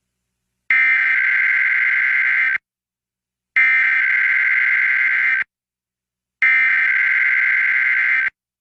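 Emergency Alert System test header: three bursts of digital data tones, each about two seconds long and about a second apart.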